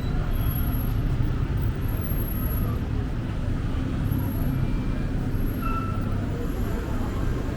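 City street ambience: a steady low rumble of motor traffic.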